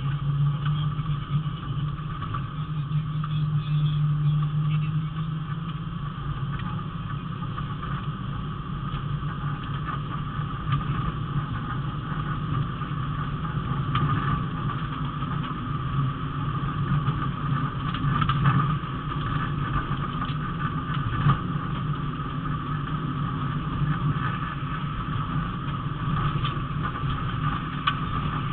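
Rally car's engine running hard at fairly steady revs, heard from inside the cabin, over tyre and road noise, with occasional sharp knocks from the rough surface.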